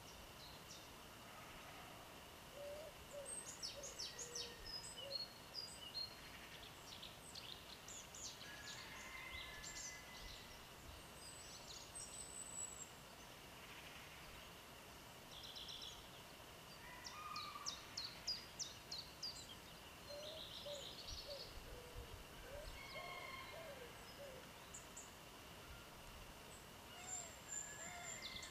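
Several small birds singing and chirping, with quick trills and rapid runs of notes. Some lower calls come in twice, over a faint steady high tone.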